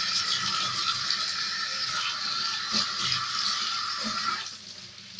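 Kitchen tap running water into a sink while it is rinsed and washed, with a few light knocks; the water is shut off about four seconds in.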